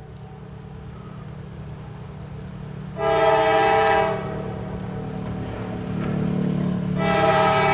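CSX diesel locomotive's multi-chime air horn sounding two blasts, one of about a second starting about three seconds in and a longer one near the end, over the low rumble of the approaching loaded coal train, which grows louder in the second half.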